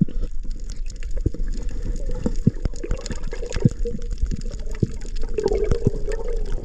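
Muffled underwater sound picked up by a hand-held camera during a freedive: a low water rush with scattered clicks and knocks.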